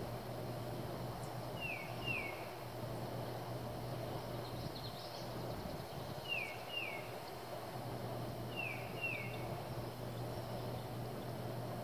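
A bird calling outdoors: pairs of short, falling whistled notes, repeated every two seconds or so, over a steady low background hum.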